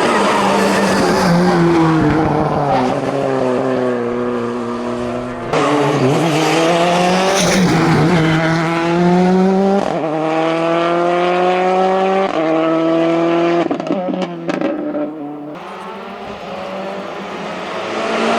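Hillclimb race car engine at full throttle, rising in pitch through each gear and dropping back at the upshifts, then fading away with a few sharp cracks; another car's engine starts coming up near the end.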